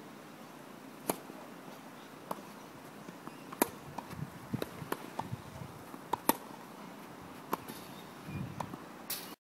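Tennis balls struck by racquets during a rally: sharp pops roughly every second and a quarter, with fainter ticks between them. The sound cuts off suddenly near the end.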